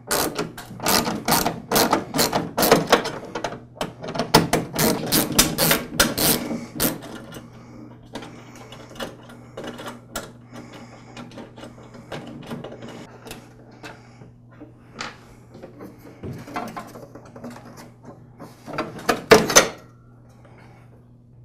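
A ratcheting hand driver clicking rapidly in bursts for about the first seven seconds as the screws holding a snowblower's plastic rear panel are backed out, then a few scattered small clicks. Near the end, a short clatter of the plastic panel being pulled free.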